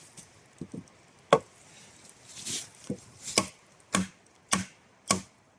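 An axe striking wet pine: five sharp wooden blows, a lone one about a second in and then four coming roughly every half second near the end.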